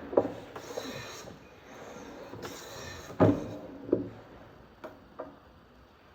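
Hand tools worked on wood: two longer scraping strokes and several sharp wooden knocks, the loudest about three seconds in, then a couple of lighter taps near the end.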